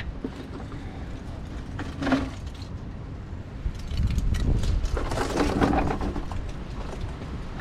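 Engine oil pouring from an unplugged sump drain hole into a plastic drain pan. It grows louder about four seconds in as the stream starts.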